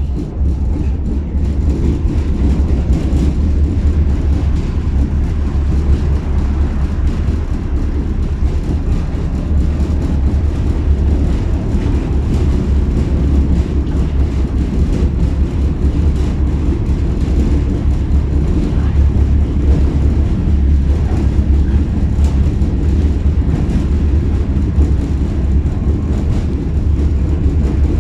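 Tatra T6B5 tram running along the line between stops: a steady low rumble of wheels on rails and running gear.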